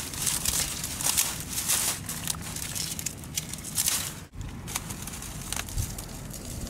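Dry cattail stalks rustling and crackling close to the microphone as they are pushed and packed by hand to block off the top of a mink trap set. It breaks off abruptly about four seconds in, and is followed by quieter rustling with a few snaps.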